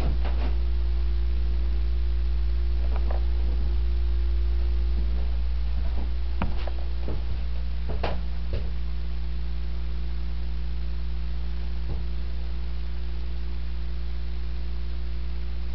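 Steady low hum with a few light clicks and knocks, mostly in the first half.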